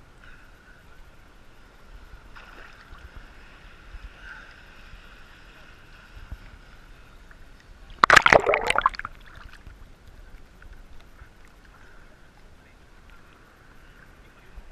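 Small ocean waves lapping at a camera held at the water surface. About eight seconds in, a wave washes over the camera housing with a loud, brief splash lasting about a second and a half.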